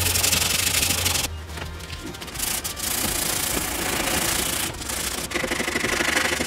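Hand sanding of wooden blocks with a sanding sponge: quick back-and-forth scratching strokes, with short pauses about a second and a half in and again near five seconds in.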